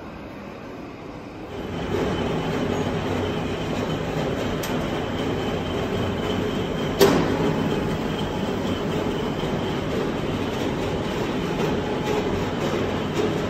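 Steady mechanical running noise from workshop machinery, starting up about a second and a half in, with one sharp click or knock near the middle.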